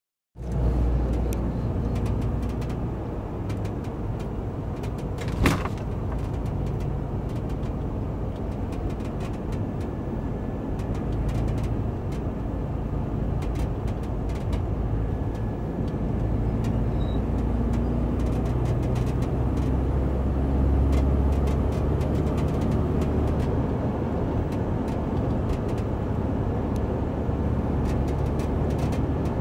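2015 UAZ Patriot on the move: steady low road and engine rumble with many short creaks and ticks from around the rear door, the squeak the owner is chasing, and one sharp knock about five and a half seconds in.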